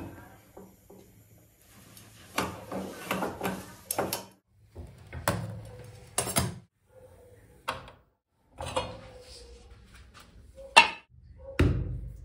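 Kitchen utensils being handled: scattered clicks and knocks of metal tongs, a tawa and pots on a gas stove, with the loudest knock near the end.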